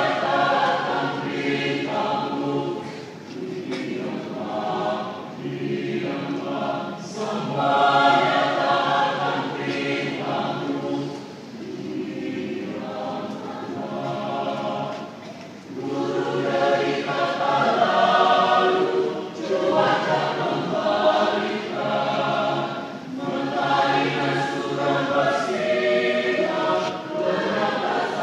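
Church choir singing a hymn, phrase after phrase, with brief breaks between phrases, heard from among the congregation's seats.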